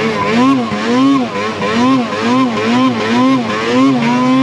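Snowmobile engine revving up and down over and over as the rider works the throttle while riding through snow, the pitch rising and falling about twice a second.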